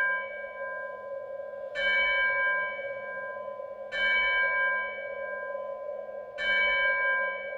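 Intro music built on a struck bell-like tone, sounding three times about every two seconds and ringing out slowly after each strike, over a steady held tone.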